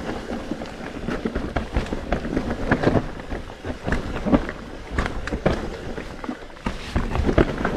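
Mountain bike riding over rough, rooty trail, picked up by a chest-mounted camera: a steady low rumble of the tyres with irregular knocks and rattles from the frame and chain.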